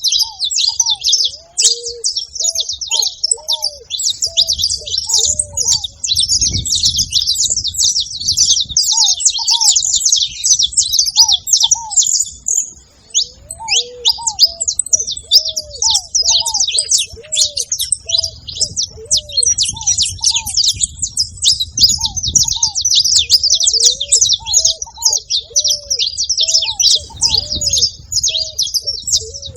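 A group of saffron finches chirping and singing together in a dense, unbroken chatter of high notes, with a lower repeated note running underneath.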